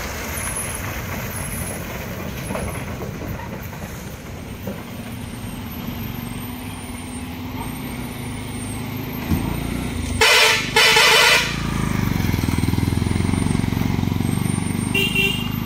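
Heavy lorry diesel engine running on a hill road. A horn blasts twice in quick succession about ten seconds in. After that the engine grows louder as the truck comes nearer, and a short higher beep sounds near the end.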